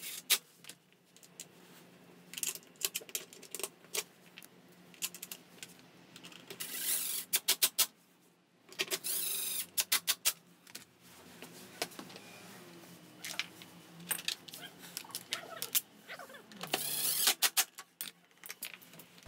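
Cordless power driver running in several short bursts as it runs down the bolts of a Yamaha Cygnus X scooter's belt-drive (CVT) cover during reassembly, with clinks of bolts and tools being handled between bursts.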